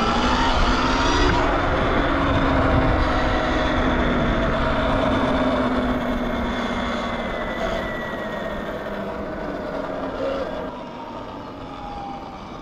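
Sur-Ron X electric dirt bike riding along, its electric motor and drivetrain giving a thin whine over a steady rush of wind. The whine's pitch climbs a little in the first couple of seconds, then sinks slowly as the bike eases off, and the sound grows quieter over the last few seconds.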